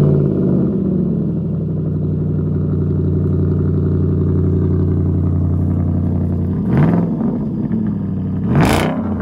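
2011 Jaguar XFR's supercharged V8 through a straight-piped aftermarket exhaust, idling just after start-up and settling from the start flare in the first second. It is revved twice near the end, each rev rising and falling back to idle.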